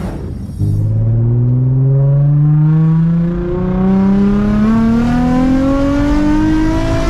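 Nissan 350Z's V6 accelerating hard through a decatted ISR blast pipe exhaust, its note climbing steadily in pitch over several seconds, with a short dip in level about three and a half seconds in. It is very loud.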